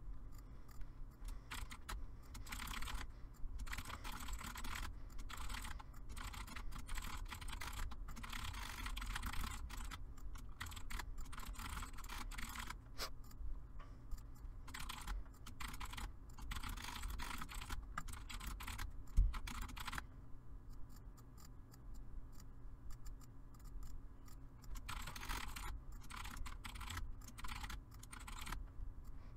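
Computer keyboard typing in quick runs of keystrokes with short pauses between them, over a low steady hum. There is a quieter stretch about two-thirds of the way through, and one louder thump just before it.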